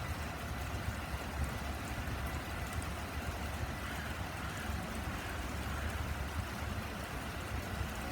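Class 377 Electrostar electric multiple unit pulling away from the platform: a steady low rumble with a hiss over it.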